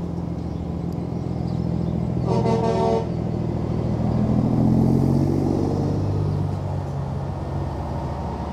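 Truck horn sounding one short blast about two seconds in, over the steady run of heavy diesel truck engines. A cab-over prime mover then drives past close by, its engine note rising and then falling as it passes, loudest about halfway through.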